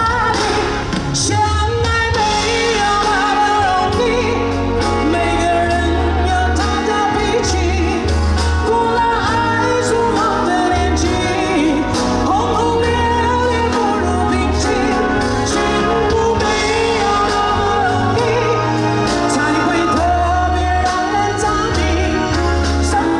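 Live pop ballad: a woman singing into a microphone over a band accompaniment with a steady bass line.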